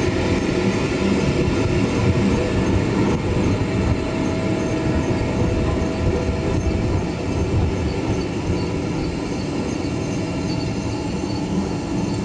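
Waste tyre pyrolysis plant in operation: steady low rumble of the rotating reactor drum and its gear drive.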